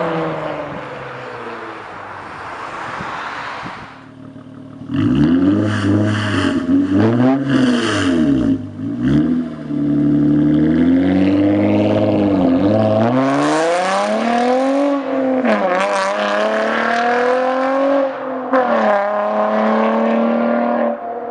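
Honda Accord V6 engine through a custom Magnaflow exhaust, revved over and over. There are a few quick blips about five seconds in, then longer climbs and falls in pitch, and more short blips near the end.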